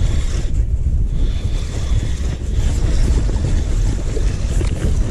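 Wind buffeting the microphone: a steady, loud low rumble with a thin hiss above it.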